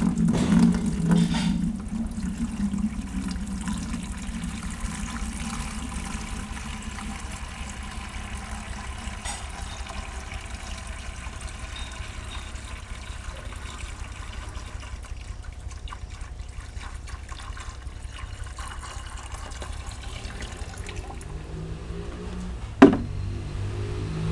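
A gallon of water poured into a bucket, splashing loudest in the first couple of seconds and then running on steadily as the bucket fills. A single sharp knock near the end.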